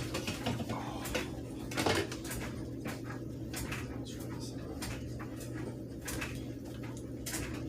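Small electric fans running with a steady hum, with scattered handling clicks and knocks; the loudest knock comes about two seconds in.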